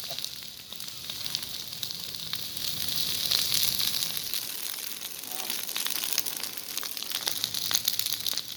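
Outdoor vegetation fire burning, a steady hiss with many quick sharp crackles and pops.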